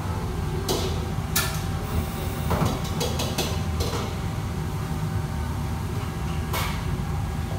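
Steady low roar of a commercial kitchen's wok burners and extraction hood, with sharp metal clanks of utensils against pans several times, busiest between about two and four seconds in.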